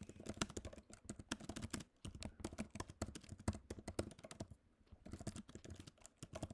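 Typing quickly on a computer keyboard: a dense run of key clicks, with brief pauses about two seconds in and about five seconds in.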